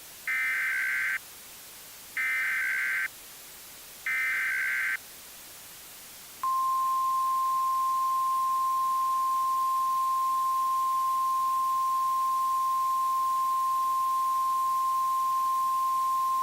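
Emergency Alert System opening signals for a tornado warning: three identical bursts of SAME digital header data, each a harsh warbling screech about a second long with a second's gap between them. About a second and a half after the third burst comes the steady, piercing 1050 Hz weather-radio alert tone, held for about ten seconds until it cuts off.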